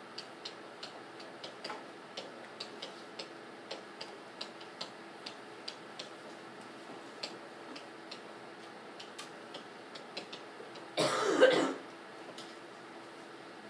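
Stylus tapping and clicking on a tablet screen during handwriting: light, irregular ticks, two or three a second, that stop about ten seconds in. About eleven seconds in comes one short, loud cough.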